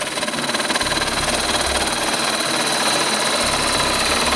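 Home-made woodturning lathe, driven by an old washing-machine motor, running steadily while a turning tool cuts into a spinning pallet-wood spindle: a dense hiss of cutting with a steady high whine.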